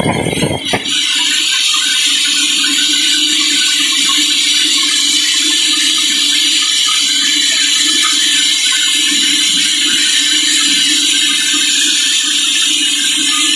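Sawmill saw cutting through a large teak log, a steady loud hissing rasp. A heavier, deeper rumble drops away about a second in.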